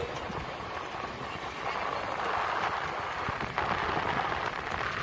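Steady rushing wind noise on the microphone mixed with the running noise of a moving vehicle, growing a little louder about two seconds in.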